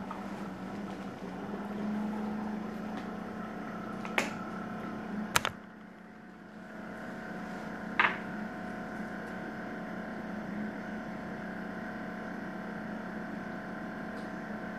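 Steady electrical appliance hum, with three sharp plastic clicks about four, five and eight seconds in from a plastic pill organizer's compartment lids being opened and a plastic water bottle being handled.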